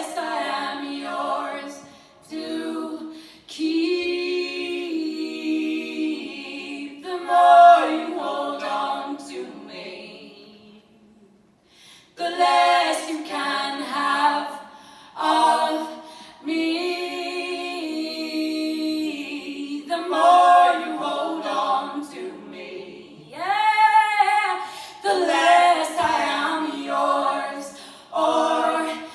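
A cappella singing by several voices in harmony with no instruments, in sustained phrases that break off briefly about eleven seconds in.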